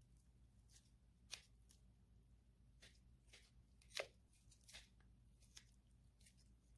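Kitchen scissors snipping raw chicken drumstick meat away from the bone: a scattering of faint short snips and clicks, the sharpest about four seconds in.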